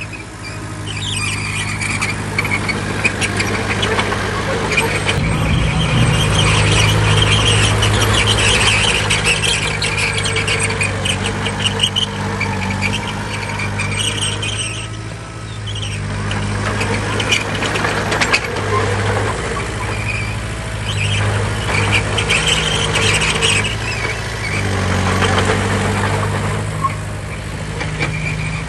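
Heavy diesel earthmoving machine running under load, its engine swelling and easing off, with a high metallic squeal that comes and goes and scattered clanks of metal.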